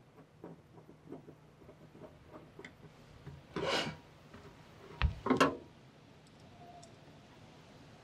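A hand screwdriver driving screws into the water heater tank's mounting bracket, with faint clicks and metal rubbing. A louder scrape comes about three and a half seconds in, and a sharp knock with a short burst of noise about five seconds in.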